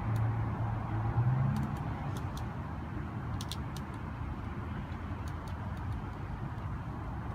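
A motor vehicle engine running steadily with a low hum that rises in pitch briefly about a second in, with a few light clicks scattered through.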